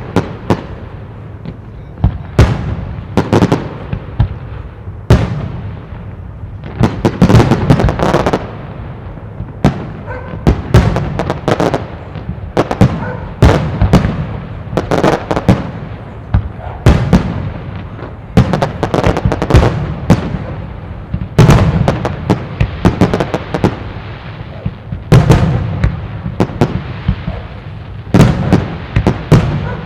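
Fireworks display: aerial shells bursting one after another, sharp loud bangs coming every second or so and bunching into rapid clusters, with echo and crackle between them.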